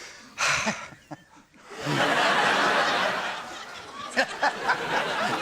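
Studio audience laughing, swelling into sustained laughter about two seconds in.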